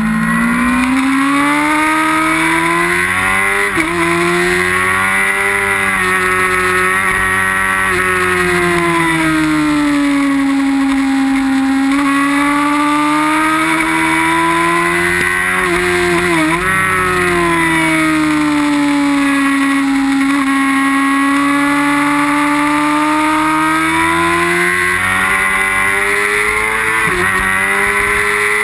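Onboard sound of a racing sportbike's inline-four engine running hard at high revs on track, with wind rush. The engine pitch rises and falls slowly through long sweeps, and dips briefly and sharply three times, near 4 s, near 16 s and near the end.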